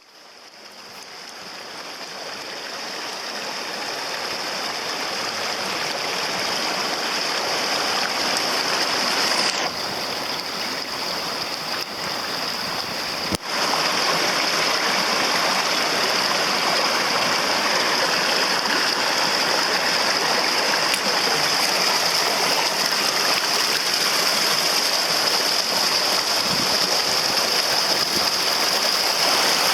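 Mountain stream rushing steadily over rocks, fading in over the first few seconds, with a sharp click about thirteen seconds in.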